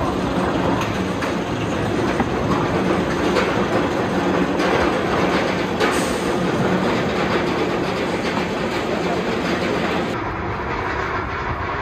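B&M hyper coaster train climbing its chain lift hill: a steady mechanical clatter of the lift chain and ratcheting anti-rollback, softening a little near the end.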